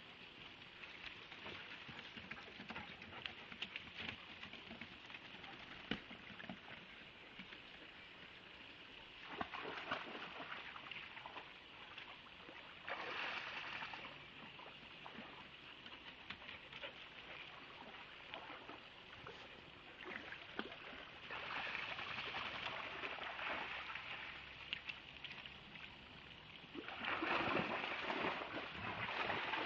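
Bearded Collies splashing about in water over a steady rushing hiss, the splashing swelling into louder bouts several times.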